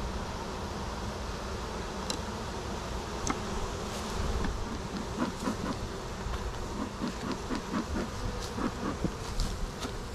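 Swarm of honey bees buzzing steadily, with short louder buzzes coming more often in the second half as single bees pass close.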